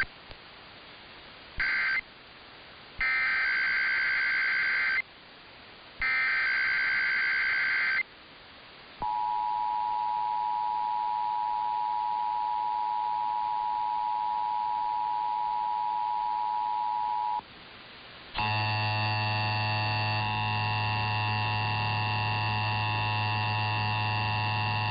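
Emergency Alert System test signal: three short bursts of warbling digital header data tones, then the steady two-tone attention signal held for about eight seconds before it cuts off. About a second later a harsher, buzzy steady tone with a strong low hum starts and runs on.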